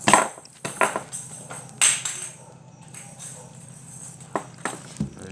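Jingling, rattling noise made in irregular shakes and knocks, about nine strokes, the loudest near the start and just before two seconds in.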